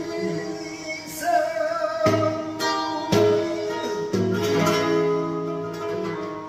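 Flamenco singing por seguiriya: a voice holds long, wavering notes over acoustic guitar chords struck every second or so, fading near the end.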